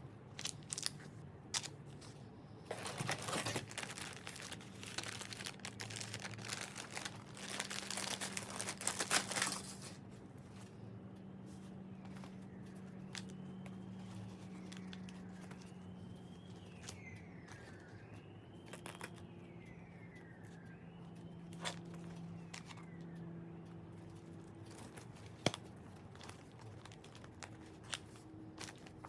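Parcel packaging being handled and opened: crinkling and tearing in two longer rustling bursts, then scattered light clicks and handling knocks.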